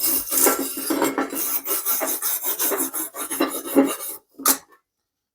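Rapid, irregular rasping strokes of something being scrubbed or scraped against metal, running for about four seconds, then one short final stroke.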